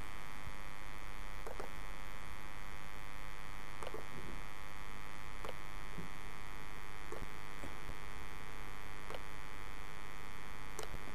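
Steady electrical mains hum with a faint mouse click every second or so as shape points are dragged.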